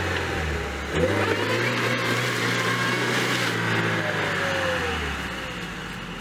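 Chevrolet Niva's four-cylinder petrol engine revving under load while the SUV is stuck in mud and being pushed out. The revs dip and climb again about a second in, hold steady, then fall away near the end.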